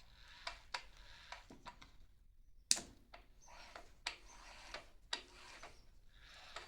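Scattered light clicks and knocks of metal tools being handled while a magnetic drill is positioned over a stud hole, with one sharper knock about two and a half seconds in. The drill motor is not running.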